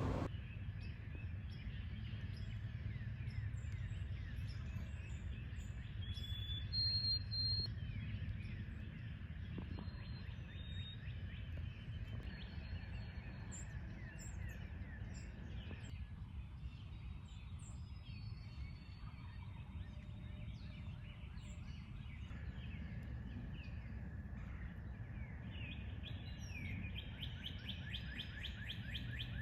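Songbirds chirping and whistling now and then over a steady low rumble of wind, with a fast run of repeated chirps near the end.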